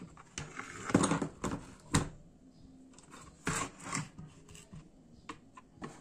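T-Dagger Naxos T-TGK310 mechanical keyboard handled and set down on a wooden table: irregular knocks and clatter of its case and keys. The sharpest knock comes about two seconds in, with a few lighter clicks near the end.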